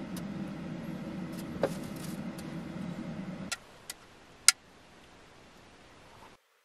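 A low steady rumble runs for the first three and a half seconds and then stops. Sharp plastic clicks follow as a clear plastic lid is pried off a disposable soup cup, with the loudest snap about four and a half seconds in.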